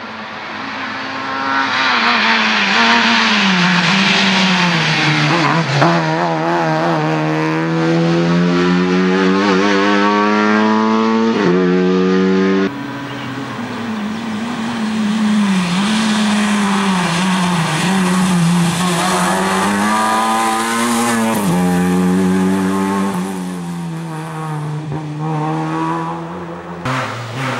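Lada 2105 rally car engine revving hard under load, its pitch climbing and dropping repeatedly through gearchanges and lifts. The sound breaks off abruptly about 13 seconds in and again near the end.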